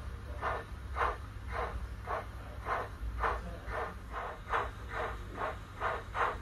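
DCC sound decoder in a Bachmann Baldwin 009 model locomotive playing the recorded steam exhaust chuffs of the Ffestiniog Railway's 'Prince', as the model runs along the track. The chuffs quicken from about two to about three a second, a low hum under them.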